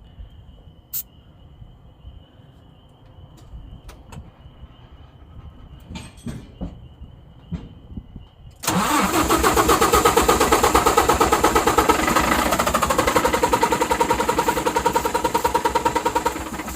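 Starter cranking a Volvo semi truck's diesel engine, a loud rhythmic churn beginning suddenly about nine seconds in and lasting about eight seconds, without the engine catching. Ether has been sprayed into the intake to help it fire, because the fuel system is losing prime with air in the lines.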